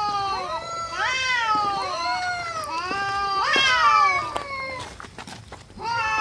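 Several cats meowing and yowling, their calls overlapping, each rising then falling in pitch, with a short lull about five seconds in.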